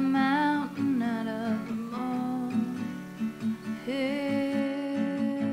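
Background music: an acoustic guitar song with a sung vocal line.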